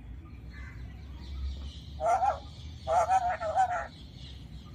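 Alexandrine parakeet giving two calls with a wavering, warbling pitch: a short one about two seconds in, then a longer one lasting about a second.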